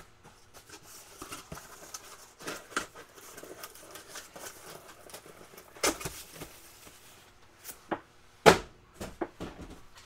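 Scattered rustling, clicks and knocks of objects being handled, loudest about six seconds in and again a little past eight seconds in.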